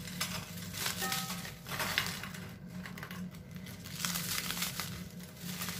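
Petit-beurre biscuits being broken up by hand, a continuous irregular run of cracking and crumbling.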